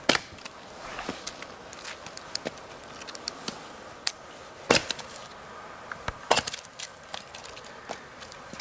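Firewood being split into kindling: several sharp chopping strikes of a blade into wood, the loudest just after the start and about halfway through, with lighter cracks and knocks of sticks in between.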